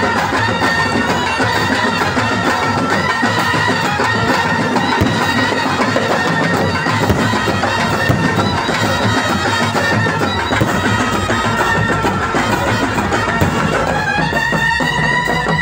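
Loud music from a light-and-sound show's soundtrack, with long held melody notes over a dense backing. The music changes character near the end.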